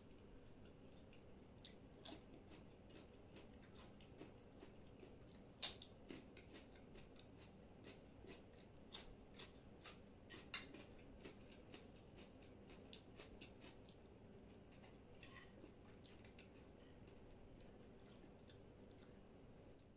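Faint, close-miked eating sounds: a person chewing crisp lettuce and pasta, with sharp crunches and mouth clicks scattered irregularly. A louder crack comes about six seconds in and another about ten and a half seconds in.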